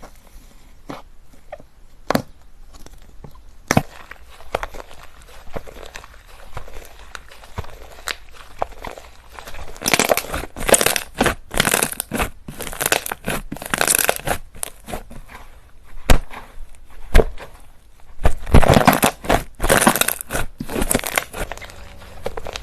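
Slime being squished and pressed by hand: scattered sharp pops and clicks at first, then from about ten seconds in, repeated bursts of crackling and crunching.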